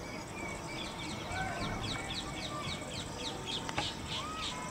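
Birds calling: a rapid run of short, high, downward-sweeping chirps, about three or four a second, starts about a second and a half in, with a few lower whistled notes among them, over a steady outdoor background hiss.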